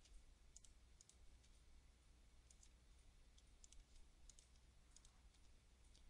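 Near silence: faint, scattered computer mouse clicks over a low steady hum.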